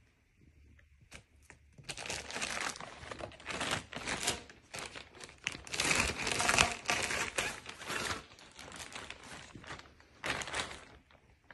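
Clear plastic bag being handled and crinkled: dense, irregular crackling rustles start about two seconds in and go on, with a last burst near the end.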